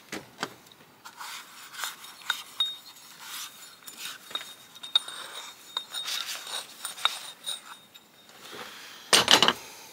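Metal air start valve parts being handled and rubbed clean by hand: scattered light clinks and taps with bouts of scraping, and a short loud rustle near the end.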